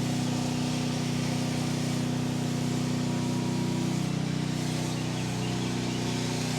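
Motor of a soft-wash spraying rig running steadily with an even hum. The hum shifts slightly in tone about four seconds in.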